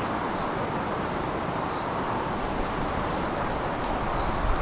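Steady outdoor wind noise with low, uneven rumble from gusts on the microphone, and a few faint bird calls.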